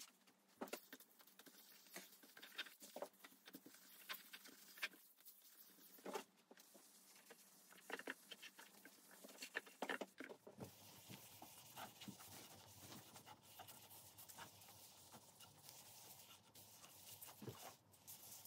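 Faint soft rubbing and scattered light taps of a cloth wiping finish onto hardwood cutting boards.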